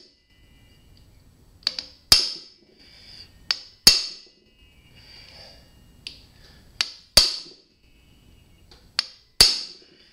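Hammer striking a hand impact driver set in a seized JIS screw on a Suzuki GS550's intake boot, to break the screw loose. Four times, a light tap is followed by a hard, ringing metal blow.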